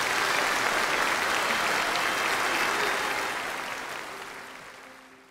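Audience applauding, dense and steady, then fading out over the last couple of seconds.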